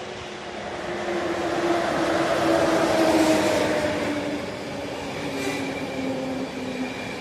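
EuroCity passenger train, an electric locomotive and coaches, rolling into the station on a far track: rail and running noise that swells to its loudest about three seconds in and then eases, with a hum that slowly drops in pitch as the train slows.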